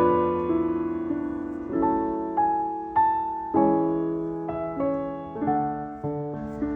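Background music: slow, gentle piano notes.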